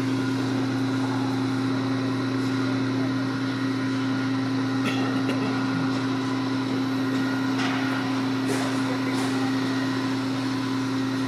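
Fire appliance's diesel engine running steadily at a constant hum, as when it powers the turntable ladder's hydraulics, with a few faint brief sounds about halfway and near the end.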